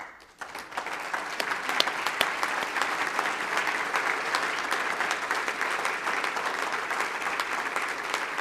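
A large seated audience applauding: the clapping starts suddenly, fills out within the first second and holds steady.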